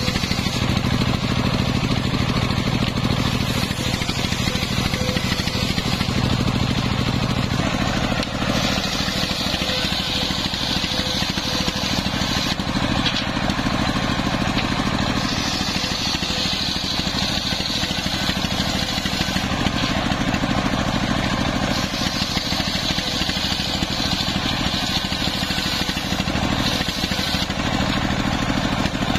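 Homemade circular sawbench ripping a timber plank lengthwise, its large blade belt-driven by a stationary single-cylinder diesel engine running steadily under load. The cutting noise swells and eases every few seconds as the plank is pushed through, over the engine's steady low drone.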